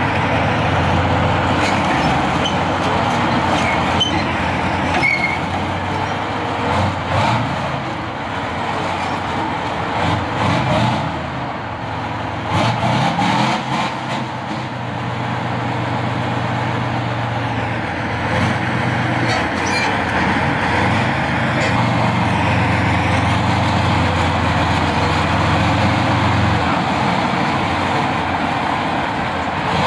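T-72M4 CZ tank's Perkins CV12 diesel engine running under load as the tank manoeuvres. The engine note holds steady for long stretches and shifts up and down several times, with a few sharp knocks.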